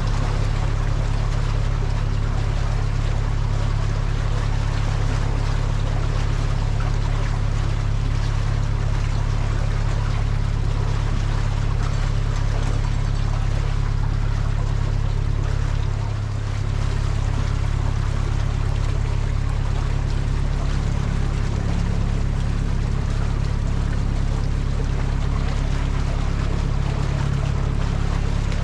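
Narrowboat diesel engine idling steadily, with a steady rush of water alongside. The level dips briefly about two thirds of the way through.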